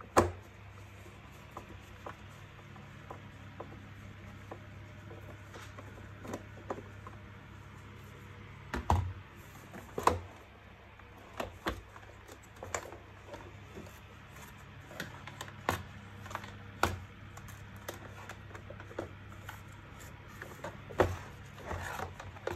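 Plastic clicks and knocks from the housing of a Zelmer Solaris Twix vacuum cleaner being unclipped and opened by hand, irregular and sharp, the loudest right at the start and a few more strong ones in the middle and near the end, over a low steady hum.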